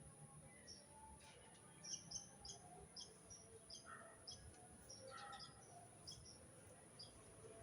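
Faint bird chirps, short and scattered, over quiet background.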